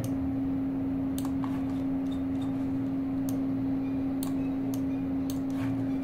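Steady low hum with a few faint clicks scattered through it.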